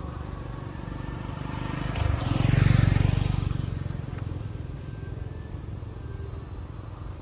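A motor vehicle driving past, its engine noise swelling to a peak about two and a half seconds in and then fading away.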